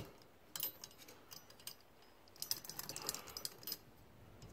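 Plastic clicks and rattles from a windscreen wiper blade's mounting adapter being handled: a few separate clicks, then a quick flurry of clicks about two and a half seconds in.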